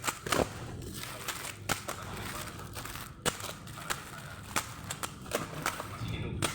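Plastic packaging being handled and crinkled during unboxing, with irregular sharp clicks and crackles throughout.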